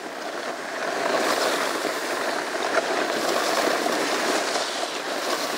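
Snowboard sliding over groomed snow: a steady scraping hiss of the board's base and edges on the snow.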